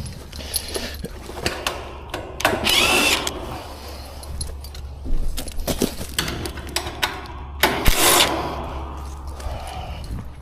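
Metallic clinking and rattling, like tools or parts being handled, over a steady low hum, with two louder noisy bursts, one about two and a half seconds in and one near eight seconds.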